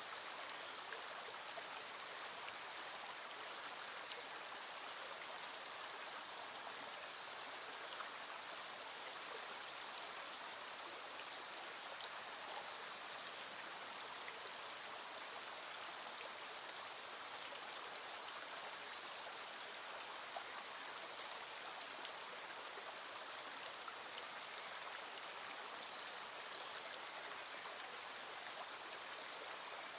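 Small stream running steadily with an even rushing hiss, with a few faint, sharp ticks of raindrops scattered through it.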